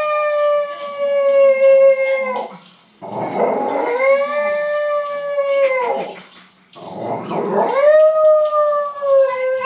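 Jack Russell Terrier howling: three long howls, each rising into a held, steady note and dropping off at its end. The first howl is already under way, and the second and third start at about four and seven and a half seconds in.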